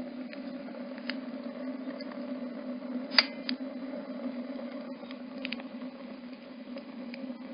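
Freshly lit rocket stove burning, with a steady low rush of draft through the stove and scattered sharp crackles from the burning wood. One loud pop comes about three seconds in.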